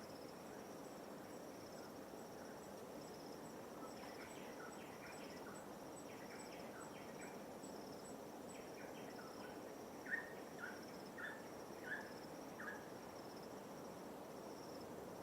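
Steady high pulsing insect chirring, cricket-like, with scattered short bird calls and a run of about five short falling whistled notes two-thirds of the way through, over a soft even wash of light waves.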